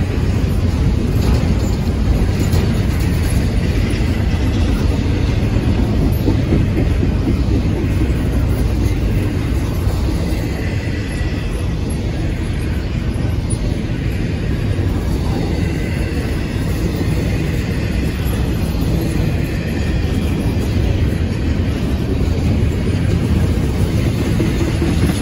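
Double-stack intermodal container train rolling past: steel wheels of the loaded well cars running on the rails in a steady rumble, with a faint high squeal coming and going.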